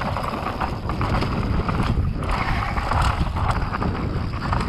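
Wind rushing over the microphone with the rumble of mountain bike tyres on a rough dirt trail and a stream of small rattles and clicks from the bike during a downhill run.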